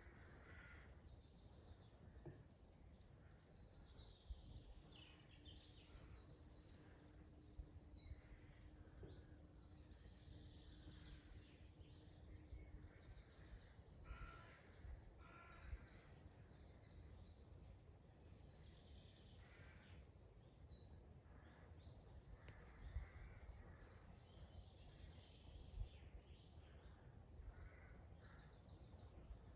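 Faint mixed woodland birdsong: several songbirds singing and calling in short overlapping phrases, with a few lower, harsher calls about halfway through. A faint steady low hum runs from a few seconds in until a little before halfway, over a low background rumble.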